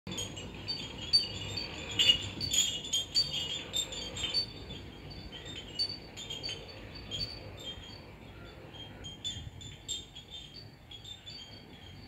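Pottery bell wind chimes clinking and ringing: irregular strikes with short, high ringing tones, busiest and loudest in the first few seconds and sparser later on.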